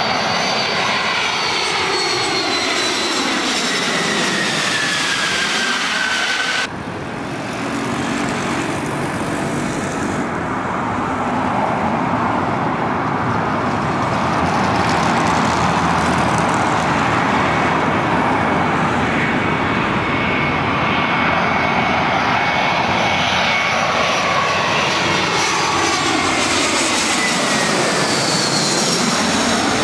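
Jet airliners' engines passing low overhead on landing approach. First a rear-engined T-tail jet's turbofan whine falls in pitch as it passes and cuts off suddenly about seven seconds in. Then a twin-engine narrow-body airliner's engines rumble and whine, growing louder as it approaches, and sweep down in pitch as it passes overhead near the end.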